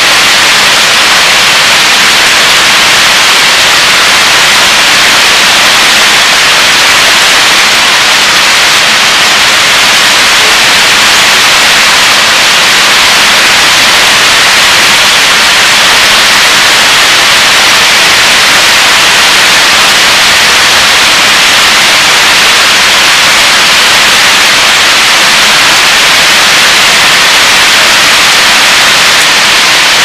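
Pouring rain: a loud, steady, even hiss with no change throughout.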